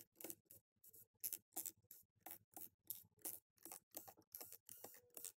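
Faint, regular clicking at about three clicks a second while screws are driven out of a laptop's plastic bottom cover with a corded electric screwdriver.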